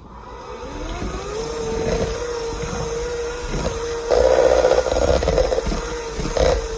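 KitchenAid cordless 7-speed hand mixer's motor whirring up to a higher speed as its beaters work butter and cream cheese: its pitch rises over the first second or so, then holds steady. About four seconds in, a louder rapid clatter joins, the beaters knocking against the stainless steel bowl.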